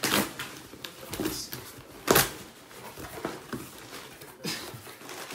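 Cardboard delivery box being pulled open by hand: rustling and scraping of the flaps, with a few sharp cardboard noises, the loudest about two seconds in.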